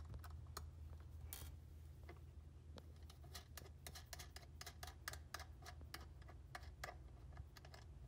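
Faint, irregular small clicks and taps of fingers handling a drone remote controller's plastic control-stick ends as they are unscrewed and removed, over a steady low hum.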